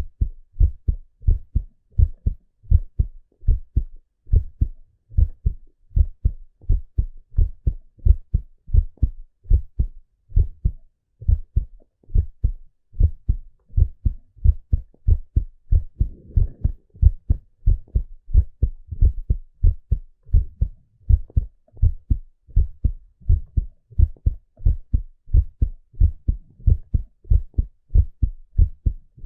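A man's heart beating steadily, heard through a stethoscope: a regular run of low paired thumps (lub-dub), with a faint brief rustle about halfway through.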